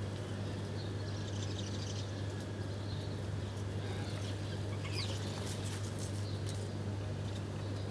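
Small birds chirping, with scattered short high calls and a few sharp ticks, over a steady low hum.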